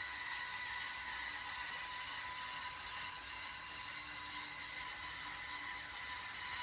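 Electric motor of an automatic self-cleaning litter box running steadily as its rake sweeps through the litter, a constant whirring whine.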